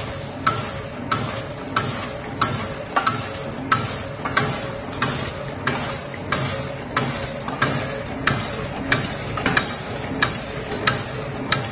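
Automatic volumetric cup sachet packing machine running, filling and sealing nut snack sachets: a sharp click about every two-thirds of a second over a steady mechanical rattle and hum.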